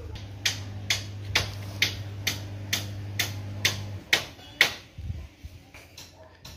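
Walking footsteps, sharp slaps at an even pace of about two a second that turn irregular and fainter after about five seconds, over a steady low hum that stops about four seconds in.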